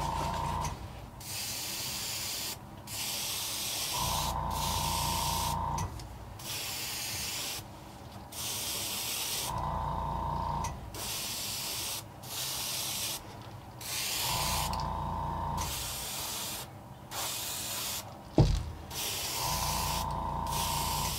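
Airbrush spraying paint in short hisses, one after another, while an air compressor's motor hums for a second or so about every five seconds. A single sharp click comes near the end.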